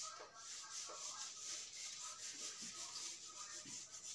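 Whiteboard being wiped clean of marker writing: a faint rubbing in quick repeated strokes.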